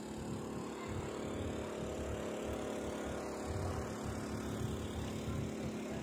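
Off-road rigs' engines running at idle: a steady drone with an uneven low rumble underneath.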